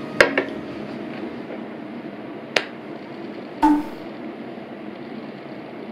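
An aluminium drink can is set down on a wooden tray: a sharp knock and a quick second one. Two more separate knocks follow a few seconds later.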